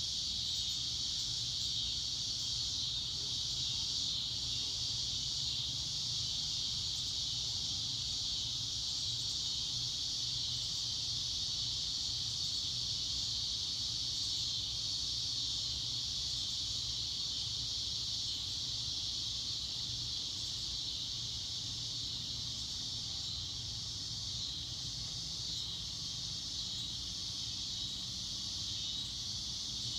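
Steady, unbroken high-pitched insect chorus of the cricket kind, over a faint low hum.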